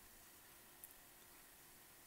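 Near silence: room tone, with one faint click a little under a second in.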